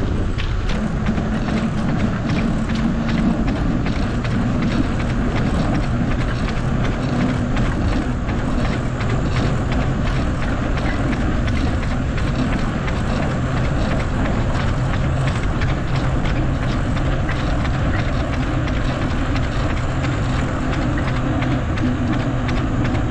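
A bicycle being ridden along a trail: steady rushing tyre and wind noise on the microphone, with a fast, even ticking running through it.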